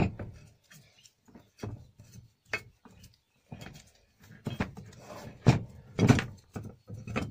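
Metal parts of a mini lathe being handled and set down on a workbench: a series of clunks and knocks with some scraping between them, the loudest right at the start and a pair of heavier knocks about five and a half to six seconds in.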